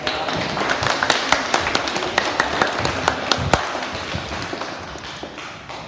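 A hall full of schoolchildren clapping: a dense patter of many hands that starts at once, then thins out and dies away near the end.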